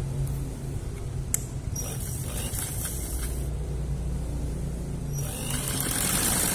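Sewing machine motor humming steadily while fabric is shifted and rustled under the presser foot. A single sharp click comes about a second in, and the hiss grows louder near the end.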